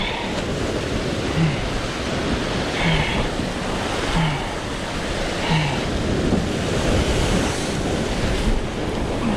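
Surf surging and breaking over a rock ledge, with wind buffeting the microphone. A short, low pitched sound repeats four times, about every second and a half, in the first half.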